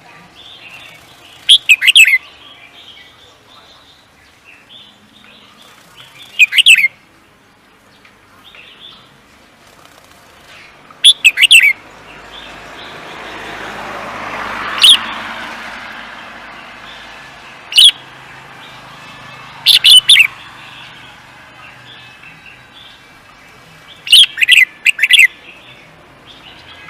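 A songbird singing short, loud, high-pitched phrases a few seconds apart, with fainter chirps between them. Midway, a broad rush of noise swells and fades over about five seconds.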